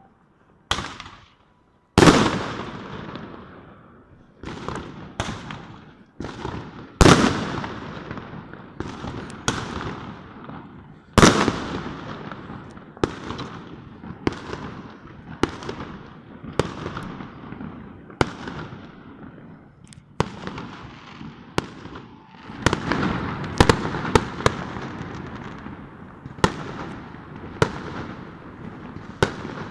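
Fireworks and firecrackers going off all around: a long series of irregular sharp bangs, each with a fading echo off the surrounding buildings. A quicker run of cracks comes about two-thirds of the way through.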